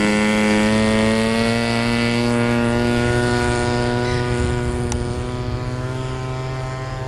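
Zenoah G26 26cc single-cylinder two-stroke gas engine of an RC model Cessna, swinging a 16x8 Xoar propeller, running at full throttle through the takeoff and climb-out. Its pitch holds steady after settling in the first second, and the sound slowly fades as the plane climbs away.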